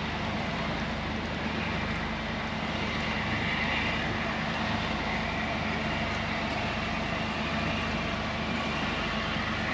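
LNER A4 Pacific steam locomotive Sir Nigel Gresley standing, with a steady hiss of escaping steam over a low, even hum.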